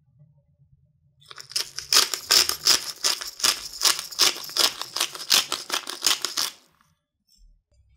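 Hand-twisted pepper mill grinding black peppercorns, a quick rhythmic crunching at about three to four grinds a second, starting about a second in and stopping near the end.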